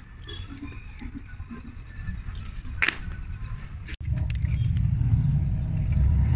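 Small steel chain links clinking and rattling as they are handled, with one sharper clink about three seconds in. About four seconds in a louder low rumble takes over.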